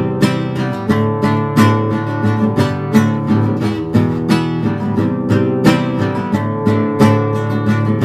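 Instrumental music: an acoustic guitar strumming chords in a steady rhythm, with no singing.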